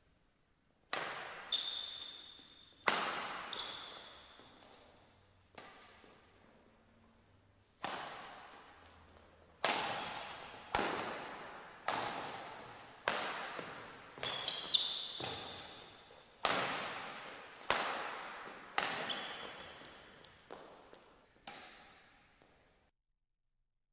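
Badminton rally: rackets strike the shuttlecock about once a second, each sharp hit echoing through the large hall. Short high squeaks of shoes on the court floor come between some of the hits. The rally stops just before the end.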